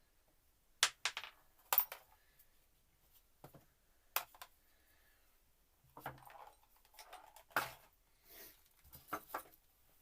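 Irregular metallic clicks and clinks from tools and small parts on a mountain bike's rear hub as its loose ball bearings are picked out, with a few louder knocks in the first two seconds and a busier run of clinks in the second half.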